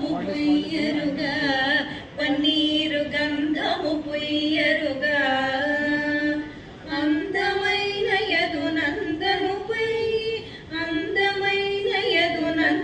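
Singing in a high voice: a slow melody of long held notes with vibrato, breaking off briefly about two seconds in and again about halfway through.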